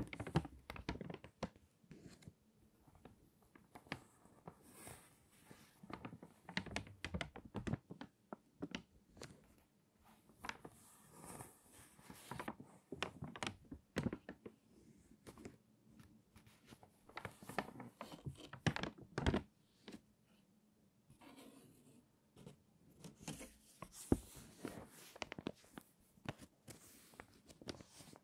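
Crinkly, stiffened pages of water-damaged magazines being turned and handled, giving runs of sharp, irregular crackling separated by brief lulls.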